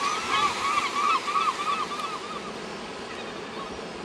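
Lesser black-backed gulls calling: a rapid run of short yelping calls, about four or five a second, that tails off after about two and a half seconds, over a steady hiss.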